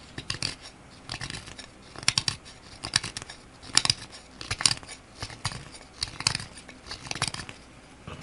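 A very thin, 13-degree CPM S60V knife edge whittling the tip of an elk antler: short scraping strokes, about one a second.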